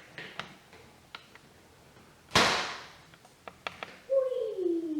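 Plastic toy pieces clicking and knocking as they are handled, with one loud clatter about halfway through. Near the end a voice makes a long falling 'oooh'.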